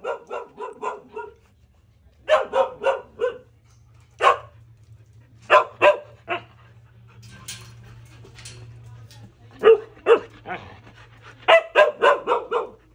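Huskies barking excitedly in quick runs of three to six short, high barks, with pauses between the runs: an excited greeting.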